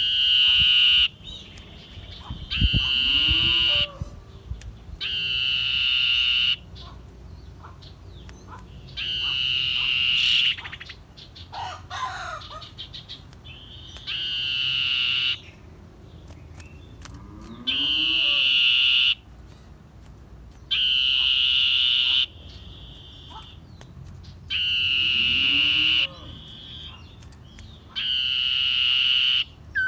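Common iora singing a long, drawn-out whistled note, repeated about every three to four seconds, nine times in all: the song of a bird in breeding condition. Fainter, lower calls rise three times in the background.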